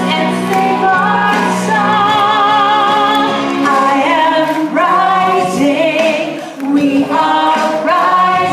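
A woman singing solo into a microphone through the hall's PA, holding long notes with vibrato over a musical backing.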